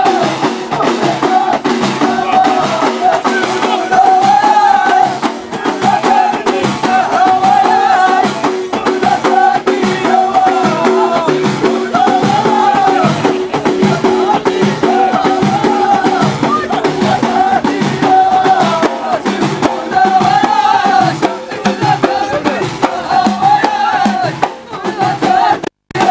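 Ahidous, the Amazigh collective song-and-dance of the Middle Atlas: a line of men singing a short phrase in unison that returns about every two seconds, over a steady, rapid beat of bendir frame drums. The sound drops out for an instant near the end.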